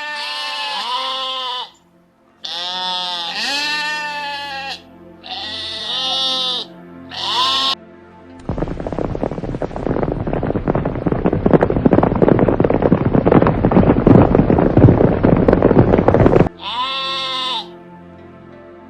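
Sheep bleating, four wavering calls one after another, then about eight seconds of dense, rough noise, and one more sheep bleat near the end, over faint background music.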